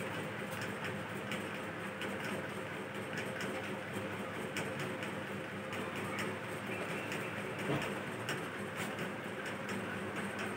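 Steady background noise with a faint hum and scattered light clicks.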